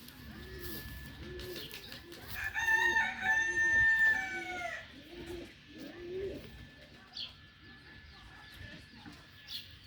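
A rooster crows once, a long call starting about two seconds in that falls away at its end, over low, repeated cooing. A couple of short, high bird chirps come near the end.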